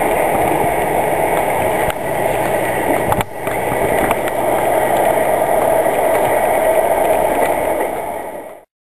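Passenger train pulling away over the rails: a steady rushing rumble of wheels on track that cuts off abruptly near the end.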